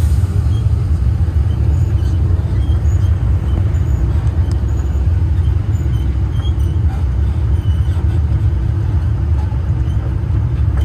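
Tourist road train running along the road: a steady, loud low rumble of engine and road noise.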